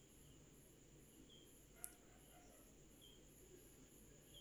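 Very quiet: gulab jamun frying gently in oil over a low flame, with a faint, even high pulsing a few times a second and a single sharp click near the middle.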